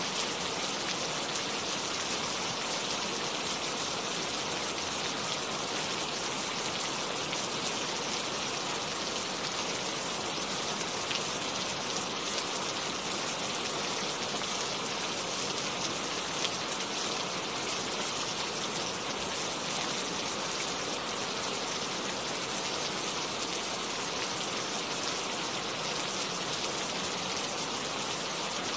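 Steady rain falling: an even hiss of many drops, with the odd single drop ticking out now and then.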